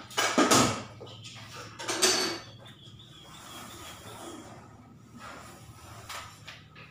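Two short scraping rustles, one just after the start and one about two seconds in, as reflective sticker film is pressed and smoothed onto a highway sign panel, followed by quieter handling noises over a low steady hum.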